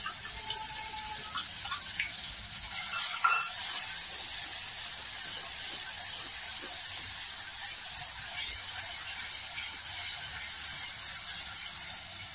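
Onion, ginger and garlic paste frying in hot oil in an aluminium pan with a steady sizzle, while a steel spoon scrapes and clicks against the pan as it is stirred; one sharp tap about three seconds in.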